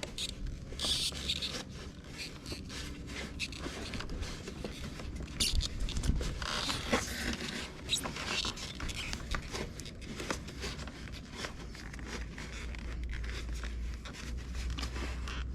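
Small irregular clicks, scrapes and rustles of steering-column parts being handled and fitted by hand, with a low steady hum underneath.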